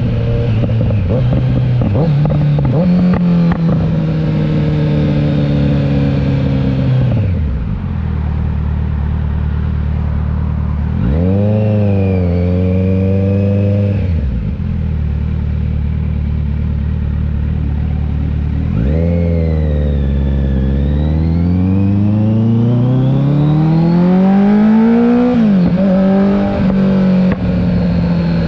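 2021 Kawasaki Z900's inline-four engine through an aftermarket CS Racing exhaust. It runs at steady revs, falls to idle about seven seconds in, gives one short rev blip, then climbs steadily in pitch from idle and drops sharply near the end, as at a gear change, before holding steady again.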